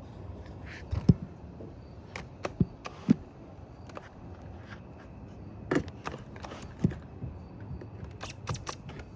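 Irregular sharp clicks and knocks, a dozen or so, the loudest about a second in, near three seconds and around six to seven seconds, over a low steady rumble.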